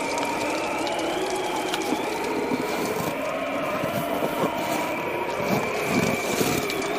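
Bonfire crackling and popping, busier and fuller in the last couple of seconds, under a steady high wavering drone.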